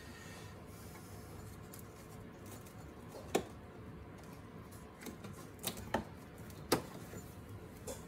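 Hand work on the car's plastic inner wheel arch liner and its trim clips: a handful of sharp plastic clicks and knocks, the loudest about three and a half seconds in and near the end, over a low steady background.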